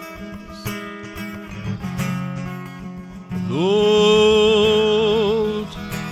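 Worship song: acoustic guitar strumming chords, then about three and a half seconds in a singer's voice slides up into one long held note with vibrato.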